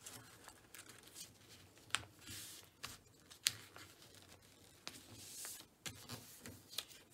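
A sheet of paper being folded and creased by hand on a tabletop: faint rustling and sliding, with a few sharp clicks as the fold is pressed down.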